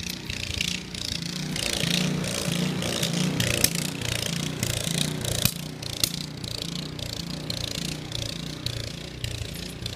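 Small gas snowblower engine running steadily with a pulsing hum, mixed with footsteps crunching in snow and a few sharp clicks.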